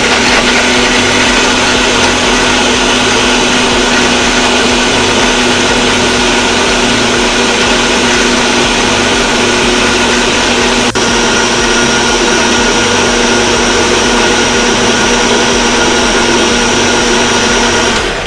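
Electric mixer grinder running steadily with a steel jar, blending milk, banana, dates, almonds, makhana and ice cubes into a smoothie. The motor hum is steady throughout and is switched off near the end.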